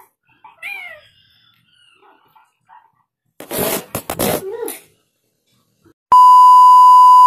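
A steady test-tone beep, loud and unchanging, starts about six seconds in and lasts about two seconds: the tone that goes with a colour-bars test card. Before it, a short run of loud bumps and rustling as the camera is knocked and tipped up.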